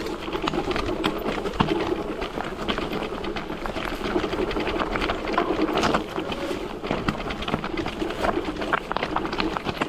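FEDDZ PF1 electric off-road bike riding over a rough trail: a continuous dense rattling and clicking of the bike's chassis and of stones under the tyres.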